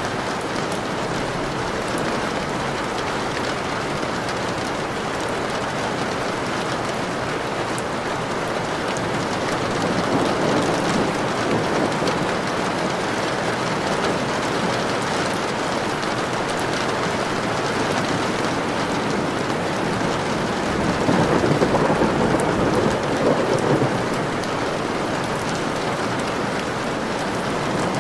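Steady rain with two rolls of thunder swelling up, about ten seconds in and again about twenty-one seconds in.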